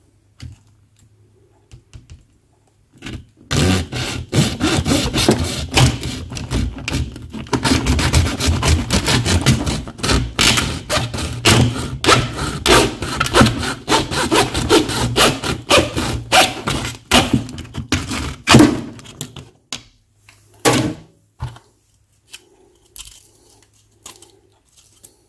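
Small hacksaw cutting through a clear plastic shower-door bottom seal with rapid back-and-forth strokes. The sawing starts a few seconds in, runs about fifteen seconds and stops, followed by a couple of knocks.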